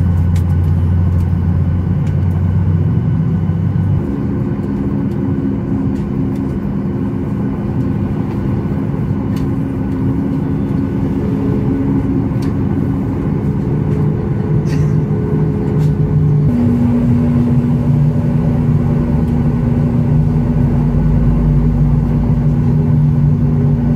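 Steady low drone heard inside the cabin of a Boeing 737 MAX 8 during pushback, its hum stepping to new pitches about four seconds in and again about two-thirds of the way through.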